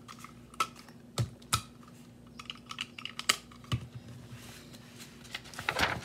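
Scattered light taps and clicks of hands handling a spiral-bound paper catalog, ending in the swish of pages being flipped over about five and a half seconds in. A faint steady hum runs underneath.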